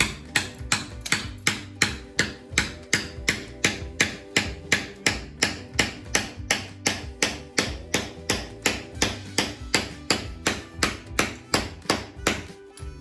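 Hammer striking a heavy-duty chisel in fast, even blows, about three a second, chipping superglued plaster cornicing off a ceiling. The blows stop shortly before the end.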